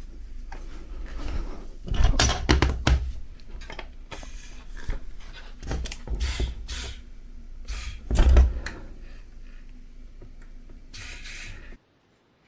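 Hands working with tools and bicycle parts: irregular clicks, knocks and rubbing, with two louder bumps about two and eight seconds in and a short hiss near the end, where the sound cuts off abruptly.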